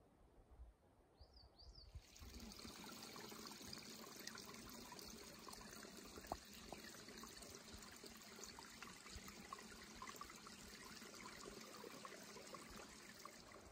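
Small forest brook trickling over rocks: a steady rush of running water that starts suddenly about two seconds in.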